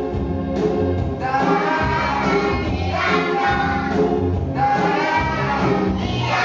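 A recorded pop song with singing over a steady beat, with a group of young children singing along.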